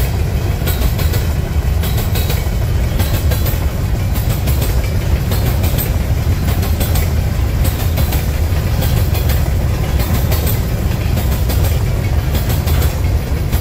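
Empty covered hopper cars of a long freight train rolling past on steel rails: a steady, loud rumble of wheels on track with frequent irregular clicks and clacks.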